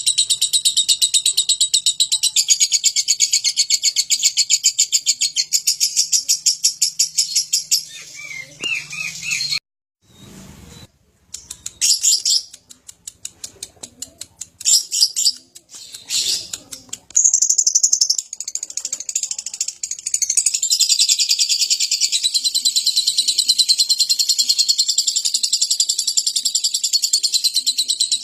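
Lovebird in long 'ngekek' song: a fast, unbroken rattle of high chirps. It breaks off about nine seconds in, with a moment of silence and scattered chirps, then starts again about 17 seconds in and keeps going.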